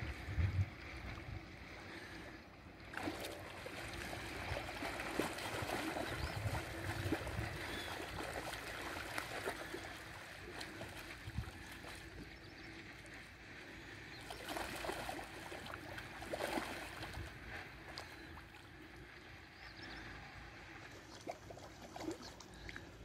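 Spawning carp splashing and thrashing at the surface of a shallow stream, in irregular spells over the steady run of the water.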